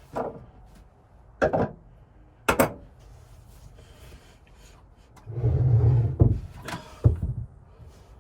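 A handful of short knocks and bumps from things being handled. About five and a half seconds in comes a longer, louder, low-pitched thudding rumble.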